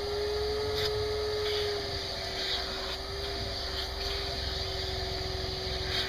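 Shop vacuum running steadily with its hose nozzle drawn over a short-haired dog's coat, sucking up loose hair: a steady motor whine over airy hiss, the whine rising a little within the first second and settling back about two seconds in.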